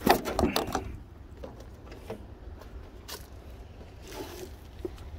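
Handling noise from working on car parts: a quick run of clicks and rattles in the first second, then a few scattered light clicks.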